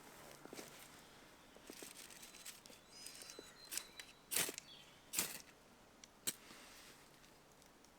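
Soft rustling with a few sharp snaps or cracks, one after another from about halfway through, and faint bird chirps.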